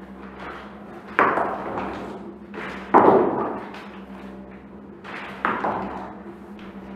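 Three loud, sudden thuds, about a second and a half to two seconds apart, each dying away over about a second, over a steady low hum.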